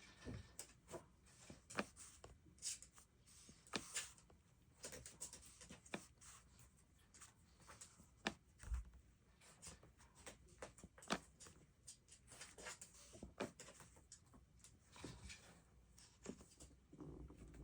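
Quiet desk sounds of working on a paper planner: scattered small taps, clicks and brief rustles of paper and stationery being handled.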